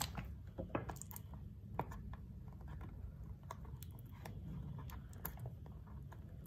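Faint, irregular clicks, taps and crinkles from a cardboard product box being handled.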